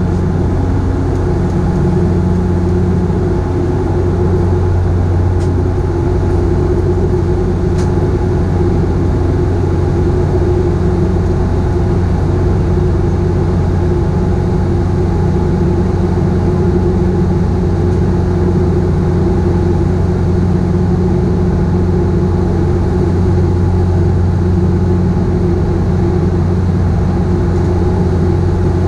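Cabin drone of a Bombardier Dash 8 Q400's Pratt & Whitney Canada PW150A turboprop and six-bladed propeller in flight, heard inside the cabin beside the engine nacelle. It is a loud, steady low hum with a hiss of airflow over it, unchanging throughout.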